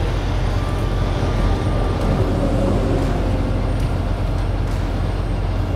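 A heavy diesel truck running steadily, a constant low engine drone over a noisy rumble.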